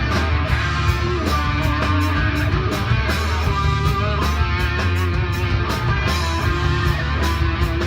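Rock music: electric guitar playing over a heavy bass line, with drums keeping a steady beat.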